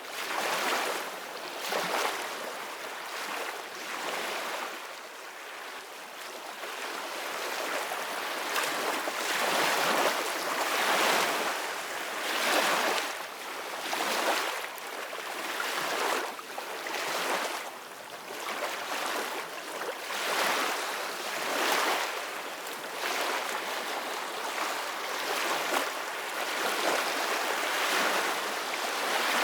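Sea waves splashing and hissing, swelling and falling back every second or two.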